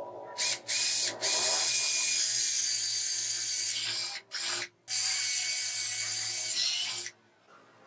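A power tool running in several starts and stops: two short spurts, then a run of about three seconds, a brief pause, and a run of about two seconds that cuts off near the end.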